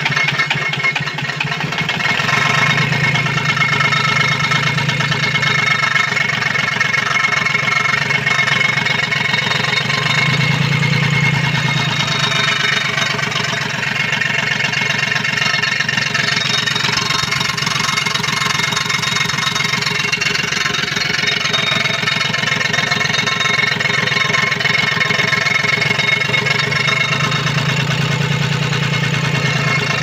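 Komatsu 3D84 three-cylinder diesel engine of a PC-20 mini excavator running steadily, heard up close in the open engine bay.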